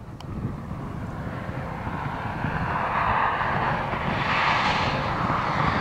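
Chevrolet SS's 6.2-litre V8 running under power as the car approaches, its engine note growing steadily louder.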